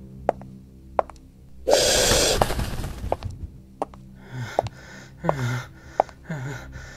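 A man's pained gasps and breaths, several short breathy catches with rising and falling voice, after a loud burst of rushing noise about two seconds in; sharp ticks sound now and then over a low steady drone.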